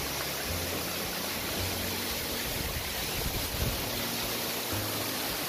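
Steady rushing of a waterfall, with a low rumble that comes and goes.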